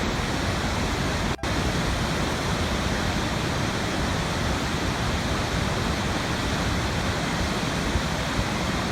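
Waterfall: a steady, even rush of falling water, broken by a split-second dropout about one and a half seconds in.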